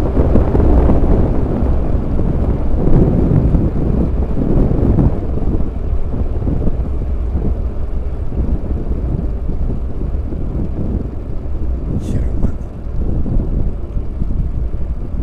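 Wind rushing over a bike-mounted camera's microphone as the bicycle rolls along an asphalt road, a steady low rumble that is loudest in the first five seconds.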